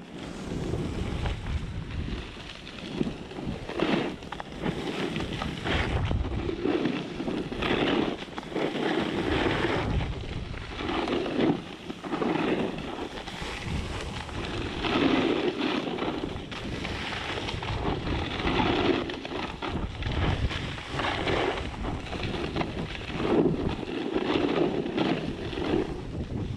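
Wind buffeting the microphone during a descent through fresh powder snow, with a hiss and scrape of edges on snow that swells and fades every second or two as the turns go.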